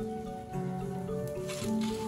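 Gentle instrumental background music with held notes. Near the end there is a faint crisp rustle of fried tempeh being slid off a metal spatula onto a plate.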